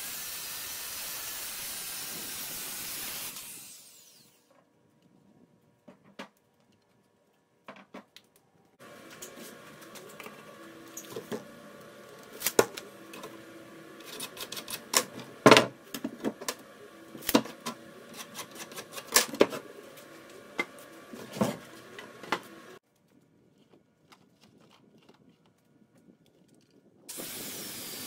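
A circular saw bevel-cutting a pressure-treated 2x8 board, running for about three and a half seconds and then winding down. After a short silence come many clicks and knocks of lumber being handled and marked with a speed square and pencil, the loudest a sharp knock about halfway through. The saw starts cutting again near the end.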